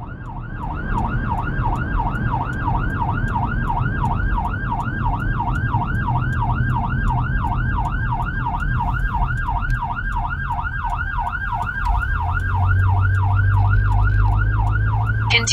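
Whelen 295SL100 electronic siren sounding its yelp tone through 100-watt speakers, heard from inside the cab. The pitch sweeps rapidly up and down, about three times a second, over the vehicle's engine and road rumble, which swells near the end.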